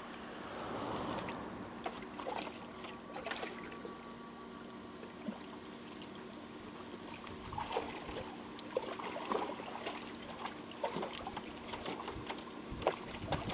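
Water splashing and sloshing in a plastic tub as a dog paws and moves around in it, the splashes coming thicker in the second half, over a steady hum.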